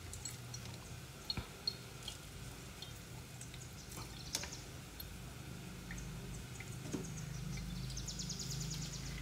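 Hand-squeezed lemon juice dripping and trickling through a plastic strainer into a cup, with small clicks from handling. A rapid patter of fine drips comes near the end, over a low steady hum.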